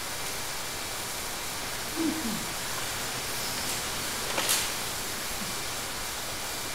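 Steady hiss of background noise in a small room, with a short falling vocal sound about two seconds in and a brief sharp breath or click about four and a half seconds in.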